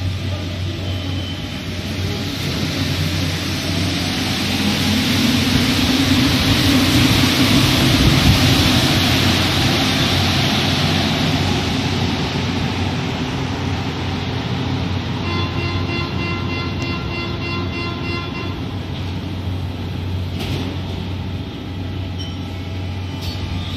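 Rubber-tyred metro train moving through the station: its running noise swells over several seconds with a motor whine, peaks about eight seconds in, then eases off. From about fifteen to eighteen seconds in, a steady electronic warning tone sounds.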